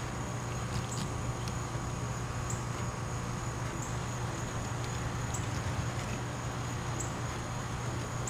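Steady low hum under a high, thin buzzing tone that restarts about every second and a half, like insects calling.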